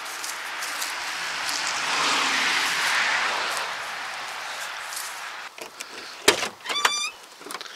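A passing vehicle: a rush of road noise that swells and then fades over about five seconds. Near the end comes one sharp click, then a brief squeak.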